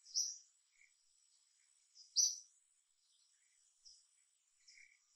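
Short high-pitched bird chirps: a loud one near the start, another about two seconds in, and fainter ones between. A faint steady high-pitched whine runs underneath.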